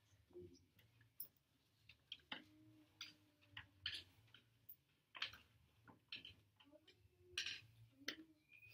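Near silence in a classroom: room tone with a low steady hum and scattered faint clicks and taps of pencils and papers at the desks.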